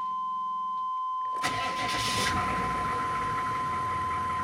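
Freshly rebuilt 6.5 L turbo-diesel V8 starting: quiet for about a second and a half, then it fires and catches at once, runs up loudly for under a second, and settles into a steady idle. It starts easily.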